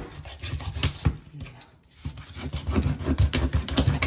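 A dog panting in quick, uneven breaths during the second half, with a couple of sharp knocks about a second in.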